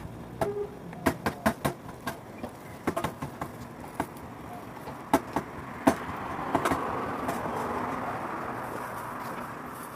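A run of sharp, irregular knocks as a vendor chops meat for tacos. From about six seconds in, a passing vehicle's noise swells and slowly fades.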